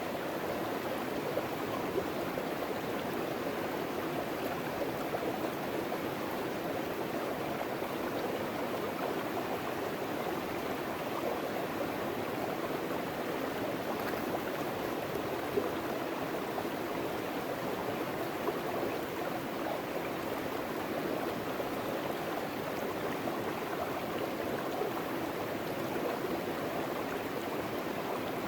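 River water rushing steadily through a gold-sluicing box set in the current, with the flow running a little fast, a little hotter than normal. A light knock sounds twice, near the start and about halfway.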